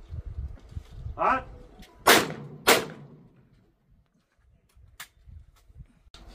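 A short shouted call for the clay, then two shotgun shots about half a second apart from a break-action shotgun firing at a clay target, each with a short ringing tail. A single sharp click follows a couple of seconds later.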